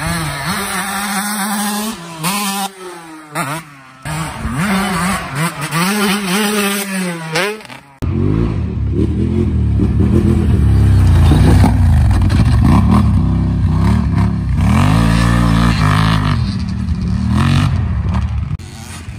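Dirt bike engine revving up and down repeatedly while riding off across a field. After a sudden cut about eight seconds in, a louder, deeper ATV engine revs up and down as the quad rides up close.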